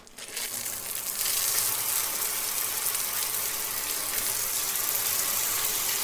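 Running water in a bathroom, a steady full gush that swells up over the first second and then holds even.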